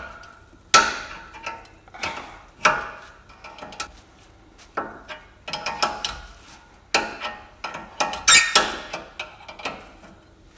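Hand tools clicking and clinking on metal as a nut is worked off a front suspension steering link whose stud has stripped, counter-held with water pump pliers. About a dozen sharp, unevenly spaced knocks with short ringing, the loudest cluster about eight seconds in.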